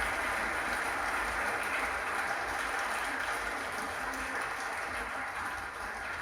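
Audience applauding after a song, steady clapping that eases off slightly near the end.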